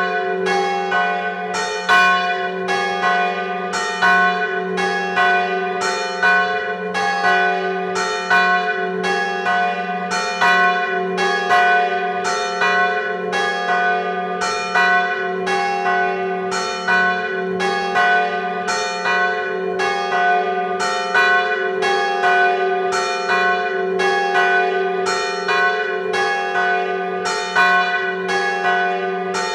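Church bells ringing a death knell (glas): the large bronze bell swung in full peal, with a regular run of clapper strokes, louder about every two seconds, over the bells' steady low hum.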